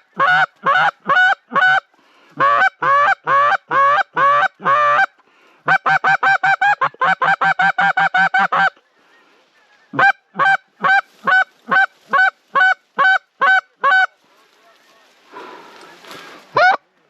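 Loud goose honking in strings of short, evenly spaced honks that break in pitch, with a brief pause about 5 s in and another about 9 s in. A faster run of honks comes a little after the first pause.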